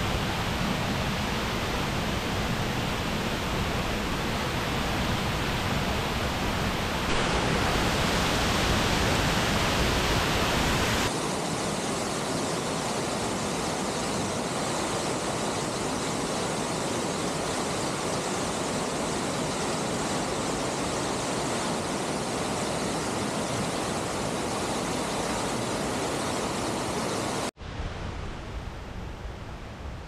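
Rushing water of a mountain waterfall, a loud, steady noise of falling water. It grows louder for a few seconds from about seven seconds in, then settles again, and cuts off suddenly near the end, leaving a fainter hiss.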